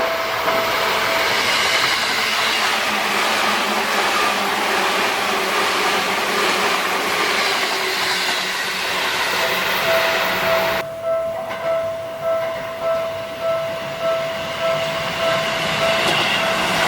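A Seibu Shinjuku Line train runs over the level crossing with a dense rolling rumble that drowns out the crossing's warning bell. About eleven seconds in, the noise thins out suddenly and the bell's repeated ding comes through again, pulsing steadily over lower train noise.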